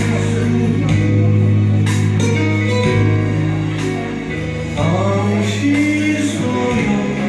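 Karaoke backing track with a man singing into a handheld microphone; the singing voice comes in clearly about five seconds in, over steady bass notes.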